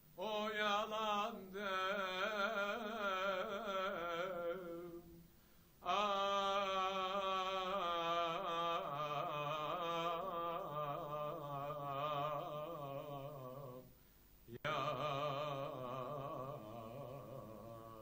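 A slow, ornamented sung melody in three long held phrases with brief breaks between them, the last one fading out.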